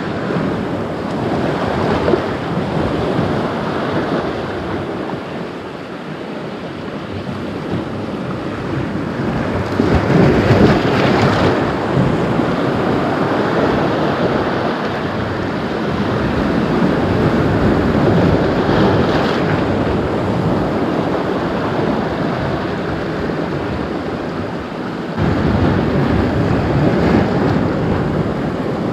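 Sea surf washing and breaking, with wind buffeting the microphone; the rush swells louder about a third of the way in and again near the end.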